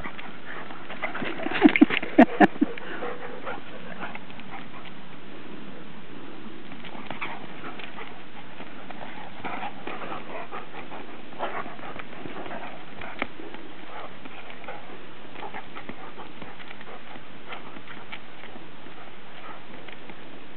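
A Standard Poodle and a Newfoundland playing rough: a quick run of about five loud, short barks about two seconds in, then quieter scuffling and scattered clicks of paws.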